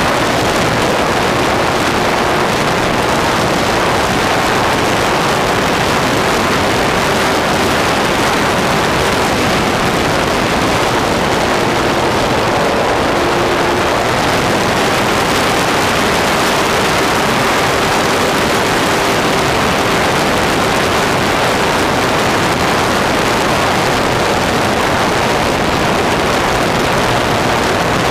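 Loud, steady wind rush over the onboard camera of a Durafly T-28 electric RC model plane in flight. Under it, the motor and propeller give a faint hum that shifts slightly in pitch partway through.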